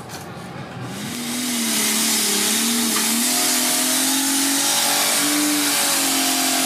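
Off-road 4x4's engine revving up about a second in and then held at high revs, its pitch wavering, under load as the vehicle climbs a steep dirt hill.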